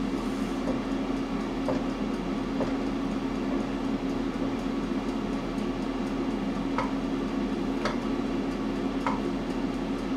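Air fryer running with a steady fan hum. A few faint clicks come and go.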